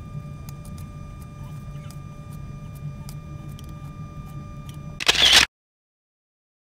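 Fish frying in a pan: scattered crackles and pops over a steady hum and faint whine. About five seconds in there is a loud, short rush of noise, then the sound cuts out completely.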